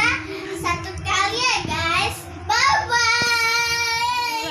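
A child singing: short sung phrases, then a long held note from about three seconds in.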